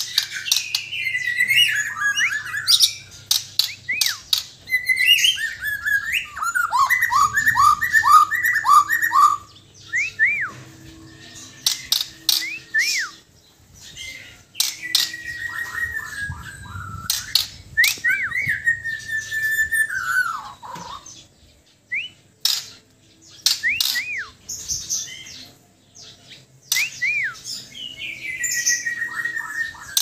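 White-crowned white-rumped shama (Bornean murai batu) singing in bursts: whistled phrases that slide down in pitch, quick runs of repeated notes and short arcing whistles, mixed with sharp clicks and brief pauses between phrases.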